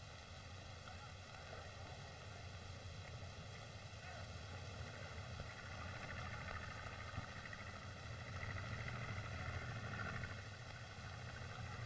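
Steady hiss and hum of an old optical film soundtrack with no distinct sound event; the hiss swells slightly in the second half.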